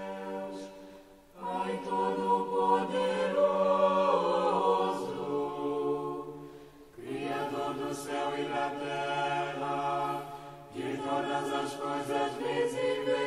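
A choir singing a slow chant in long held phrases, with short breaks between them.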